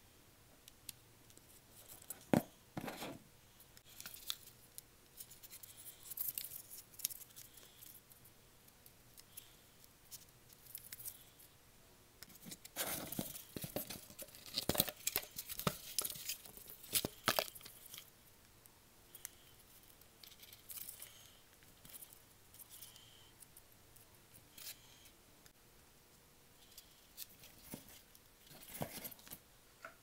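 Hands working corrugated cardboard parts: scattered scrapes, rustles and small clicks, busiest in the middle.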